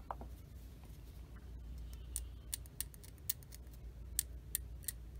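Hobby knife blade scraping a mold seam off a small plastic kit part: a run of short, sharp scrapes, about three a second, starting about two seconds in.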